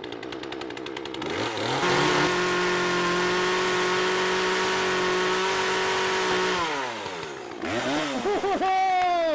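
Chainsaw engine revved from a low idle up to a high, steady full-throttle pitch held for about four and a half seconds, then let fall, followed by a few short throttle blips near the end.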